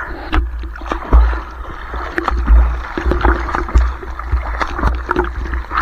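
Sea water rushing and splashing against a moving outrigger boat, with heavy wind rumble on the microphone and many short sharp splashes.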